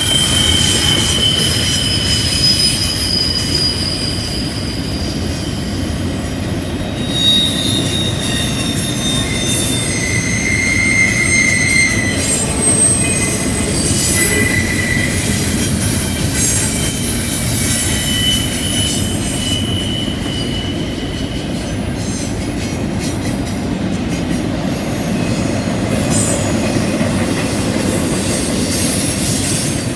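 Freight train cars rolling past on a curve: a steady heavy rumble of wheels on rail, with wheel flanges squealing in several thin high tones that come and go and shift in pitch.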